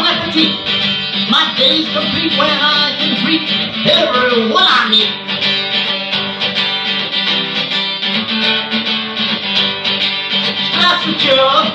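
Acoustic guitar strummed with a man singing along. The voice drops out about five seconds in, leaving the guitar on its own, and comes back near the end.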